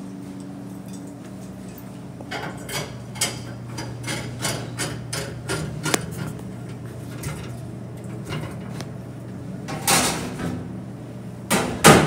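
Stainless-steel dishwasher spray arm being fitted back onto its base inside the wash tank of a commercial dishwasher: a quick run of metal clinks and knocks, then a couple of louder knocks near the end, over a steady low hum.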